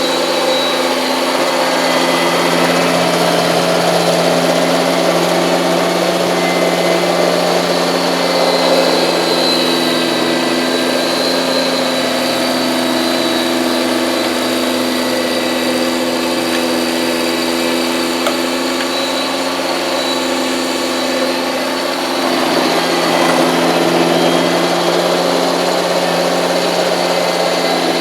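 Kubota compact diesel tractor engine running steadily at a constant speed, with a brief lull about three quarters in before it picks back up.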